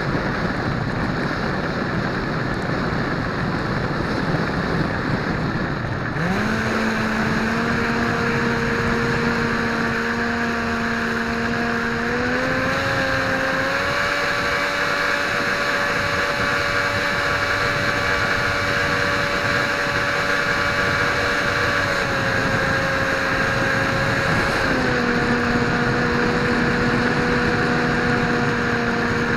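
Dynam Hawk Sky RC plane's electric motor and propeller under throttle. Wind rush for about six seconds, then the motor comes on with a steady hum. The hum steps up in pitch about twelve seconds in and drops back about twenty-five seconds in.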